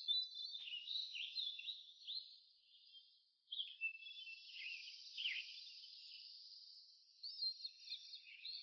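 Small birds chirping and singing: many short, high, quick notes and falling whistles over a faint steady high hiss.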